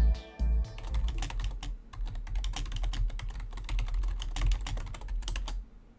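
Computer keyboard being typed on: rapid, irregular key clicks for about five seconds, stopping shortly before the end. The tail of an intro music chord fades out in the first half second.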